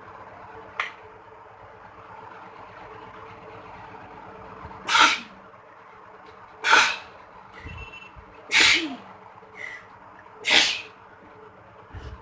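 A woman sneezing four times, about two seconds apart, set off by sneezing powder (chiikni) she has inhaled.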